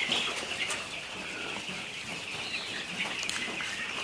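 A flock of young broiler chickens peeping and clucking without a break, as a dense chatter of many birds at once.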